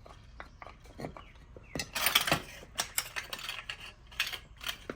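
Metal parts and tools clinking and clattering as they are handled, with a dense run of rattling strikes through the middle.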